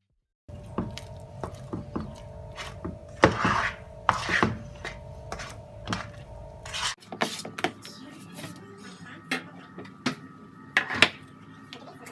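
Spatula knocking and scraping in a bowl of banana bread batter as it is mixed: frequent light clicks and knocks, with two louder scraping swishes a few seconds in. Background music with steady held tones plays underneath and changes about seven seconds in.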